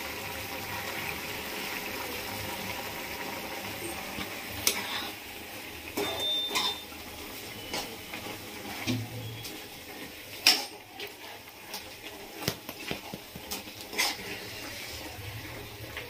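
A spatula stirring and scraping through simmering tomato curry in a non-stick kadai, with several sharp knocks of the spatula against the pan, the loudest about ten seconds in. The curry bubbles gently underneath.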